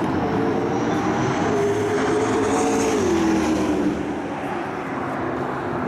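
Car engine running at speed, its pitch slowly climbing and then dropping sharply about three seconds in.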